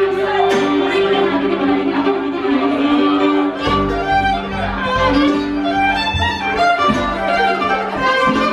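Bluegrass band playing live, with the fiddle to the fore over mandolin, acoustic guitar and upright bass.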